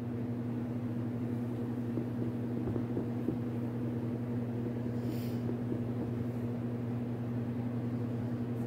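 Steady low machine hum, with a few faint knocks in the first few seconds and a brief rustle about five seconds in.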